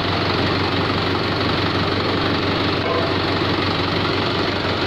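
Mahindra 575 DI tractor's four-cylinder diesel engine idling steadily.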